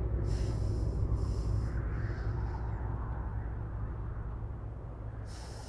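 Low, steady rumbling drone of a horror film's sound design, slowly fading, with a few short, faint hisses over it.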